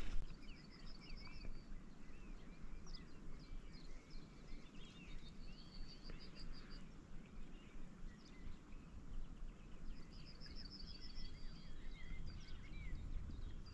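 Several songbirds calling and singing, including a high, rapid series of notes heard three times, over a low steady rumble.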